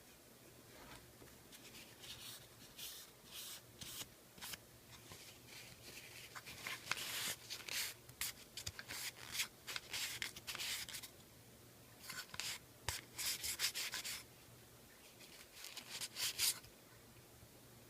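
Sandpaper rubbing on a wooden case in quick, irregular strokes, in spells broken by short pauses.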